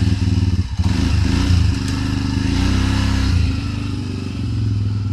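Small motorcycle engine running just after being started, steady with a slight change in speed about three and a half seconds in.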